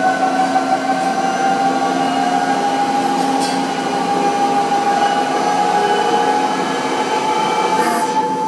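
Mazak Powermaster big-bore CNC chucker lathe running, a steady mechanical whine over a lower hum, the whine rising slowly in pitch as the spindle drive picks up speed. A brief hiss comes near the end.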